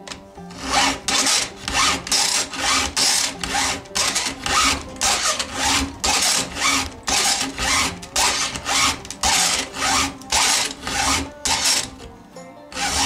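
Stihl file guide with its files pushed in strokes across a chainsaw chain's cutter, sharpening it: a rhythmic rasping of steel files on the chain, about two strokes a second, stopping near the end.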